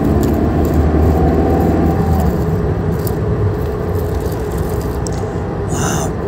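Vehicle engine-like sound running steadily with a low rumble. The deepest rumble drops back about two seconds in, leaving a steadier hum.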